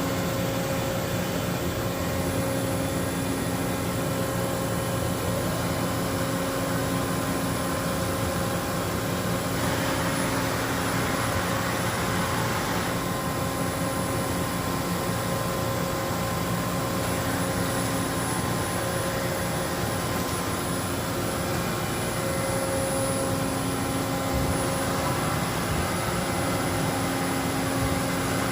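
2015 SAMAG TFZ2-1000 CNC deep hole drilling and milling center running: a steady machine hum made of several steady tones with a high thin whine above them. About ten seconds in, a louder hiss rises over it for a few seconds, then fades.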